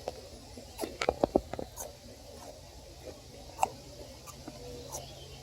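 Snapping turtle scraping and digging in the soil for her nest: scattered short scratches and clicks, with a quick cluster about a second in.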